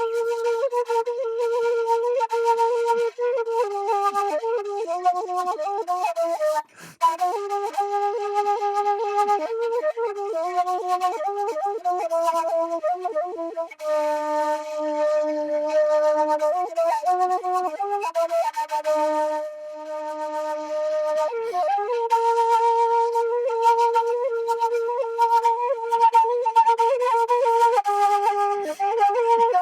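Shimshal, a Kurdish end-blown flute, playing a solo melody that moves stepwise between notes. There is a short breath break about seven seconds in, and lower notes are held for a while in the middle.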